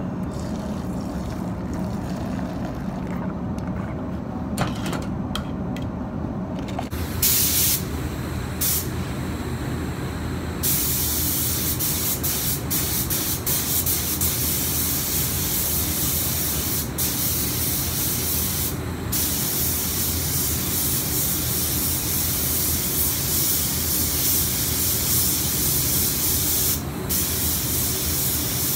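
Compressed-air paint spray gun (a small gravity-feed gun) hissing as it sprays fluoro red base coat onto an LED spotlight housing. It starts with a couple of short bursts about seven seconds in, then sprays almost without stopping, with a few brief breaks. Before the spraying there is only a low steady hum and a few clicks.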